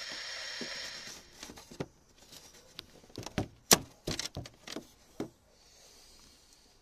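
Two-way radio static hissing for about a second after the transmission. Then a string of clicks, knocks and rustles as the radio microphone and phone are handled, with one sharp knock a little past halfway.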